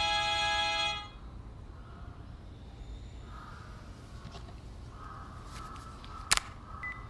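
A held music chord that cuts off about a second in, then a low steady hum with a single sharp knock a little past six seconds and a brief high beep just before the end.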